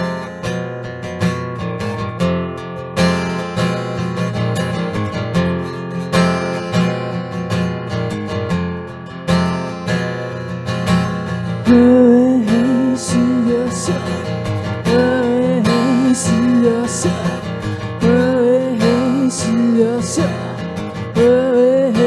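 Acoustic guitar playing chords, the intro of a ballad. About halfway through, a woman's voice joins with a wordless sung melody over the guitar and the music gets louder.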